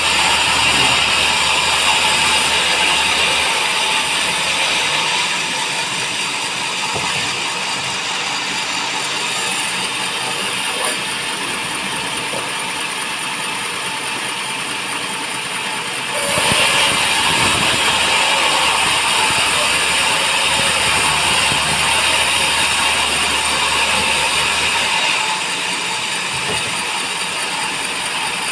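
Band sawmill running, a steady mechanical noise with a lower hum that drops out about five seconds in, returns with a sudden change about sixteen seconds in, and drops out again near the end.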